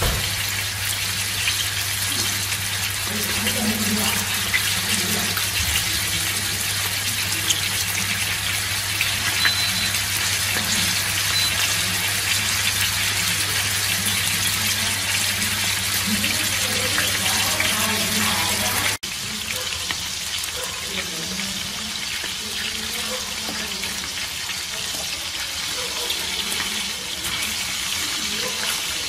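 Tuna steaks sizzling in hot oil in a frying pan: a steady hiss and crackle of frying. A low hum underneath cuts out abruptly about two-thirds of the way through.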